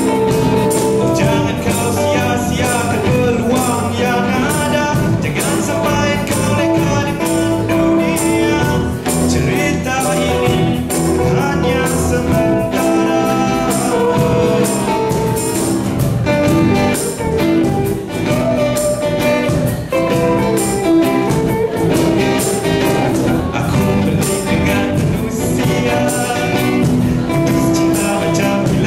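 Live band playing a song: a man singing over acoustic and electric guitars, with a steady percussion beat.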